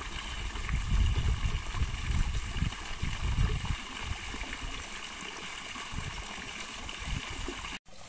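Water pouring from a pipe and splashing steadily into a small pond, with low rumbles in the first few seconds. The sound drops out briefly near the end.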